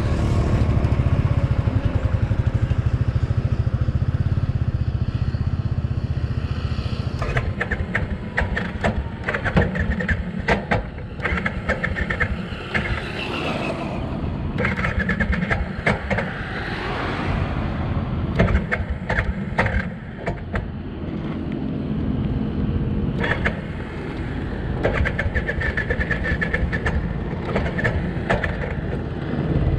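Motorcycle riding past close by on a highway, its engine a strong steady rumble for about the first seven seconds, then giving way to an uneven, crackly noise. Another vehicle's sound builds again near the end.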